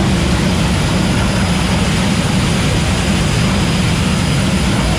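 Jet funny cars' General Electric J85 turbojet engines running steadily at the starting line: a loud, even jet roar with a deep low rumble, not yet launching.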